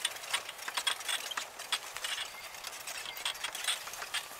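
A worn, beat-up Golden LiteRider power wheelchair rattling and clicking as it drives over a rough dirt trail, with many irregular knocks several times a second.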